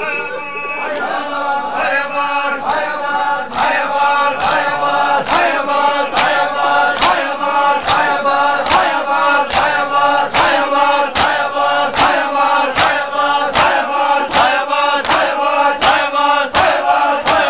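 A group of mourners chanting a noha in unison, with the sharp strikes of matam (hands beating on chests) landing together in a steady beat a little faster than once a second, starting about a second in.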